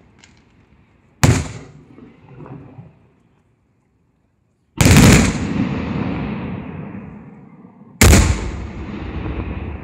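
Aerial firework shells bursting: three loud bangs, about a second in, near the middle and about two seconds before the end, each followed by a long fading rumble.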